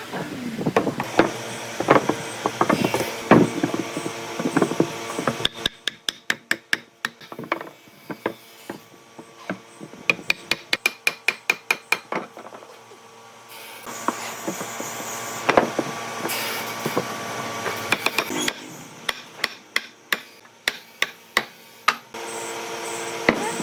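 Woodworking hand-tool work on wood: runs of sharp knocks, several a second, like hammer or mallet blows, alternating with stretches of steady workshop noise.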